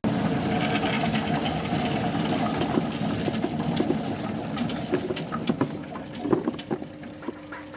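Ginger washing-and-peeling machine running, a steady motor sound with many small knocks, growing quieter over the last few seconds.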